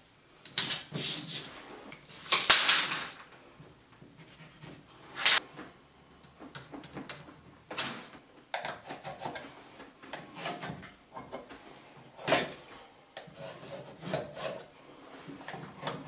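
Several short rips of painter's tape being pulled off the roll and pressed onto drywall, then quieter scratching and rubbing of hand work at the wall as the spot is measured and marked.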